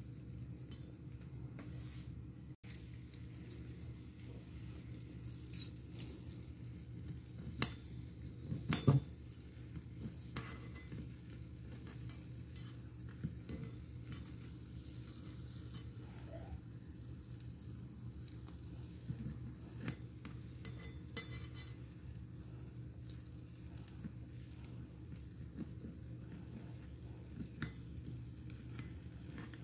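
Cassava balls frying in a miniature wok, oil sizzling, with scattered sharp clinks of a tiny metal slotted spoon against the pan as the balls are turned and lifted out; the loudest clinks come in a cluster a little under a third of the way in.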